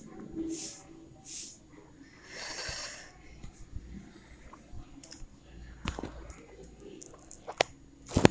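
A person's breath noises close to the microphone: a few short breathy hisses in the first three seconds. Then scattered faint clicks, with a sharper click near the end.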